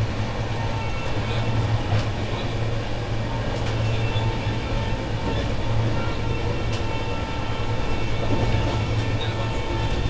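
Express passenger train running along the track, a steady rumble with a few faint clicks.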